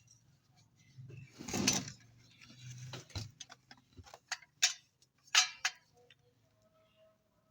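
Scattered sharp clicks and knocks of hard parts being handled, typical of an electric iron being worked on, with a short rustle about a second and a half in.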